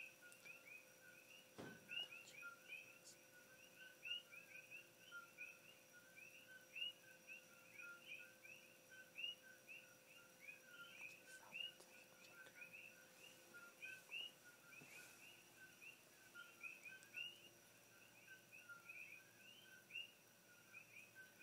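Faint night chorus of many small frogs chirping, short two-part calls repeating several times a second without a break. A soft thump about two seconds in.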